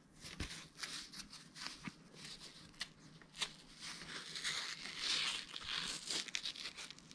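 Scratchy rustling and crinkling of a neoprene tool strap and rubber inner tube being wrapped and pulled tight around a bicycle frame tube, with scattered small clicks and rubs. It gets busier and louder about four seconds in as the strap is folded over and fastened.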